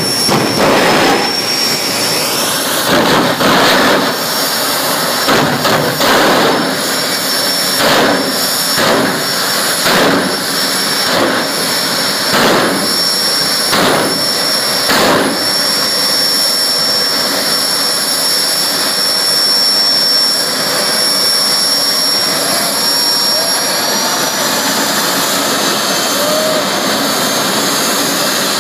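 Fireforce jet car's jet engine running on the start line with a steady high whine. For about the first fifteen seconds a series of loud blasts comes roughly once every second or so; after that the engine runs on steadily.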